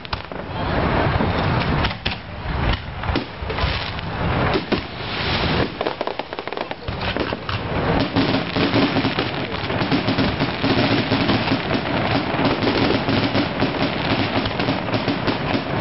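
Aerial fireworks going off: separate loud bangs in the first half, then from about halfway a dense, continuous crackling barrage.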